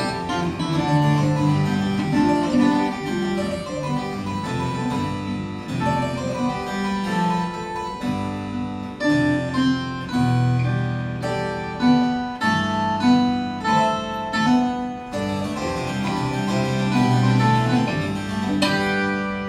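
Harpsichord and viola de cabaça, a gourd-bodied Brazilian viola, playing an instrumental duet of plucked melody and chords. A full chord is struck shortly before the end and left ringing.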